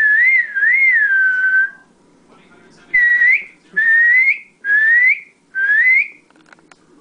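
A person whistling: a warbling note that wavers up and down a few times and trails off lower, then, after a pause, four short rising whistles, about one a second.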